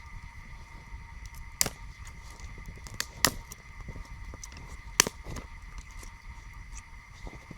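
Campfire crackling: burning wood ticks and pops, with four sharp cracks, the loudest about three and five seconds in.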